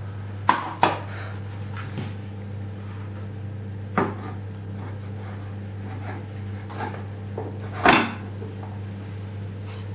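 Electric kettle and its power base being handled and set down: a few separate knocks and clunks, the loudest near the end, over a steady low hum.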